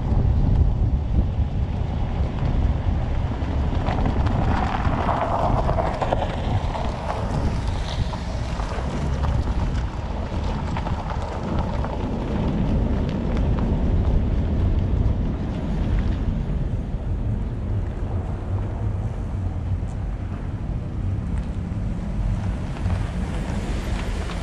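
Wind buffeting the microphone over a steady low rumble of a vehicle rolling slowly, with a short louder rush of noise about five seconds in.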